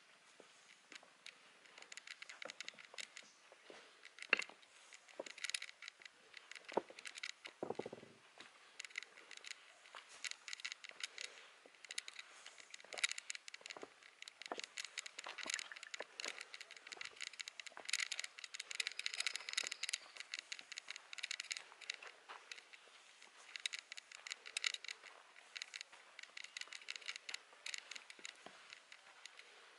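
Footsteps crunching on dry leaves and loose flat stones: an irregular stream of crackles and scrapes, with one heavier scrape about eight seconds in.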